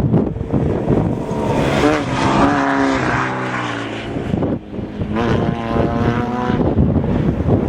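Off-road race vehicle's engine running hard, its pitch climbing and bending in two spells about two and five seconds in, over a steady rough rumble.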